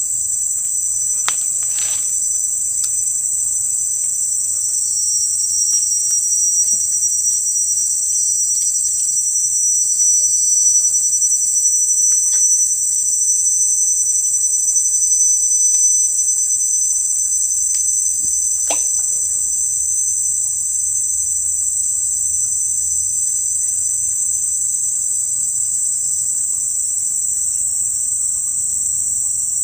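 Steady, loud, high-pitched insect chorus shrilling without a break, with a few faint clicks of handling here and there.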